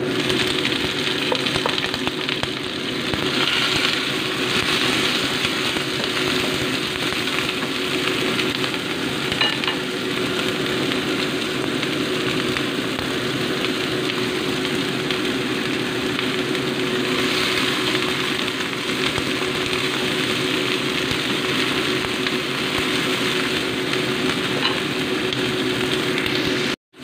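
Seaweed strips stir-frying in hot oil with garlic in a nonstick wok: a steady sizzle, with a few light spatula scrapes and a steady hum underneath.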